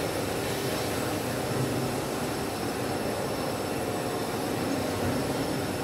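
Seven-layer co-extrusion cast stretch film line running: a steady, even machine noise with a few faint steady whines.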